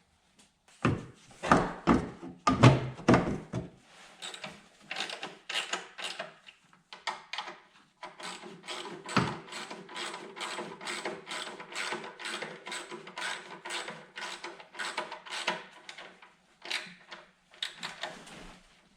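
Hand tools on an engine: a few heavy clunks and knocks in the first few seconds, then a long run of quick, even ratchet clicks, about three a second, as bolts are run down.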